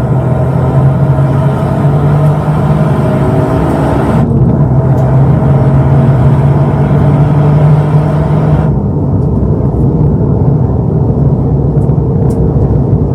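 Toyota GR Yaris's 1.6-litre turbocharged three-cylinder engine running at a steady pitch, with heavy road and wind noise, heard from inside the car. The hiss thins out about four seconds in, and more near nine seconds, as the car eases off.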